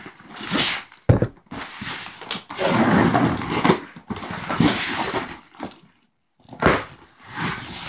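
A large cardboard shipping box being opened by hand: irregular bursts of cardboard scraping and rustling, with a sharp knock about a second in.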